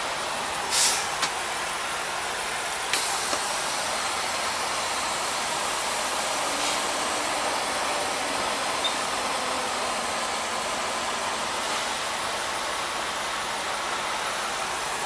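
Steady hissing noise inside a semi-truck's cab, with a short, louder burst of hiss about a second in and a few sharp clicks around three seconds.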